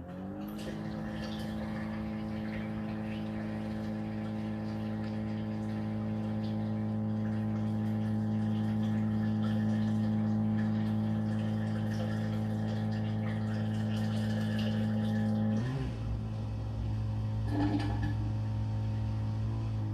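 Whirlpool WFO3P33DLXUK dishwasher's wash pump starting up after the fill, its whine rising in pitch over the first second and then running steadily with water circulating. About sixteen seconds in the sound changes, the higher whine stops and a lower hum carries on.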